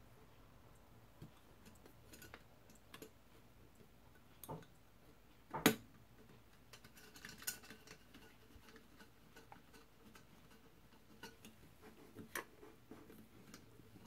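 Scattered light clicks and taps of a glass gumball-machine globe and its plastic top plate being handled and fitted onto the metal base, the sharpest click a little before halfway through.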